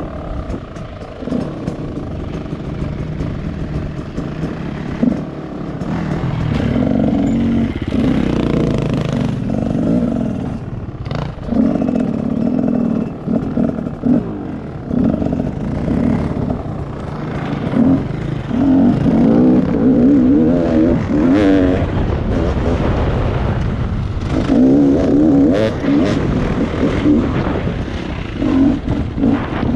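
Rieju MR 300 Pro two-stroke enduro motorcycle engine under way, revving up and dropping back again and again as the throttle is worked over rough dirt trail, with scattered knocks and clatter from the bumps.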